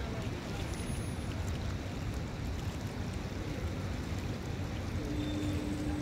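Lakeside ambience: a steady rush of wind and choppy lake water with a low rumble underneath. A faint steady hum comes in about five seconds in.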